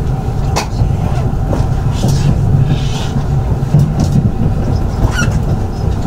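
Running noise heard from inside a JR 681 series electric train car: a steady low rumble of the wheels on the rails, with a few sharp clicks.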